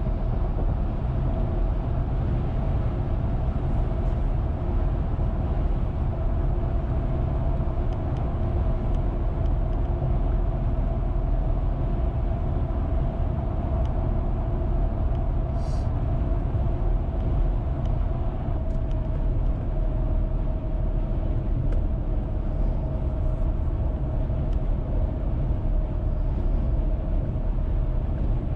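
Car cruising at a steady speed, heard from inside the cabin: a constant low rumble of tyres on the road and the drivetrain, with a faint steady whine.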